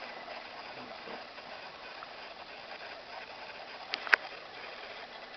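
Steady background hiss with two sharp clicks close together about four seconds in, the second one louder.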